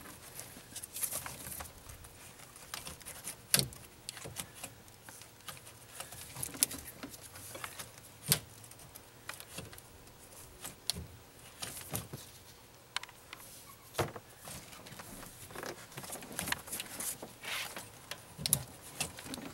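Scattered light clicks, taps and knocks of hands working loose parts around an engine's fuel rail: hoses, wiring and metal fittings being moved and tugged, with a sharper knock every few seconds.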